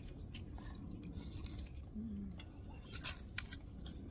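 Noodles being slurped and chewed, with short clicks of forks against plastic plates; one sharper click about three seconds in.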